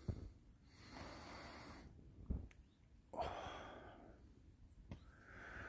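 A man's slow, heavy breathing on waking: a long breath in, then a long sighing breath out that starts sharply and fades, and a shorter breath near the end. These are the tired sighs of someone struggling to wake up.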